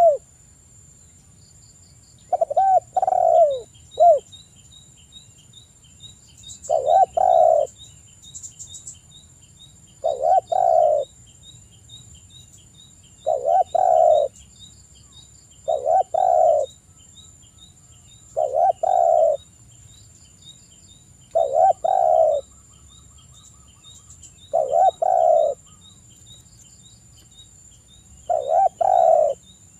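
Spotted dove (tekukur) cooing loudly: a phrase of low cooing notes about a second long, repeated about nine times at gaps of two to four seconds. A faint high chirp repeats about twice a second in the background.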